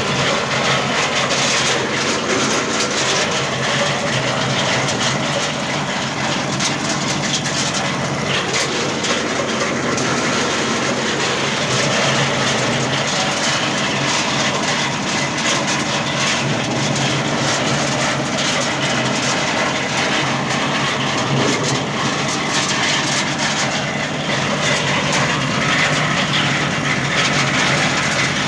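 Areca nut peeling machine running steadily, its motor humming under a dense, continuous rattle and scraping as nuts are husked.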